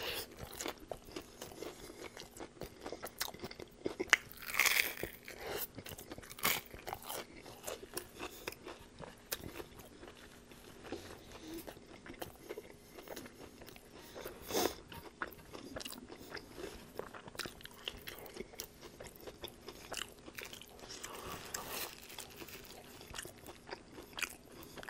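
Close-up chewing and crunching of a breaded fried-chicken chalupa shell stuffed with shredded lettuce: steady wet chewing with many small crackles. Louder crunchy bites stand out about four and a half, six and a half and fourteen and a half seconds in.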